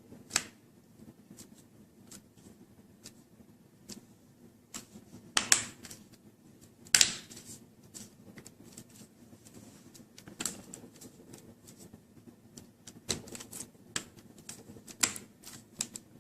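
Plastic front bezel of an Acer Aspire V5-571 laptop screen being pressed back into its clips: a run of irregular clicks and snaps. The two loudest come about five and a half and seven seconds in.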